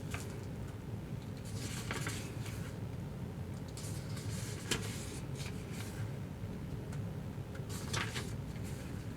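Soft paper rustling as the pages of a hardbound tarot guidebook are handled and turned, in a few separate bursts with a small click partway through.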